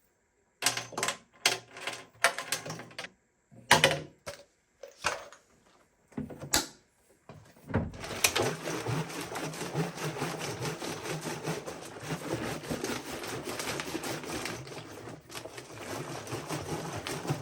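Screws and distilled vinegar being shaken inside a motorcycle fuel tank, rattling and sloshing against the tank walls to scour off rust scale. First come several separate shakes, then from about eight seconds in a continuous fast rattle.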